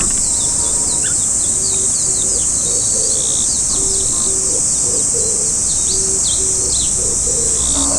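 A steady, loud high insect drone with many quick, thin chirps from small birds over it, and soft low cooing notes of an Oriental turtle dove repeating in the background.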